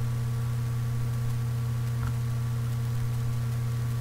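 Steady low electrical hum with a few fainter higher tones over constant hiss, from a computer microphone recording with its noise suppression switched off. A faint click about two seconds in.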